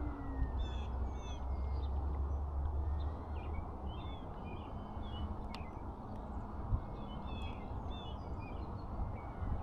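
Birds chirping over wind rumble on the microphone, with the faint drone of the distant electric RC plane's motor, its pitch falling at the start.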